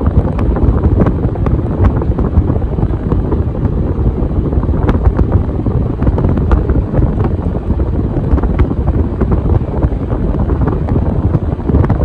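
Casablanca Delta II five-blade ceiling fan spinning fast, its downdraft buffeting the microphone with a steady rushing rumble. A few light ticks are scattered through it.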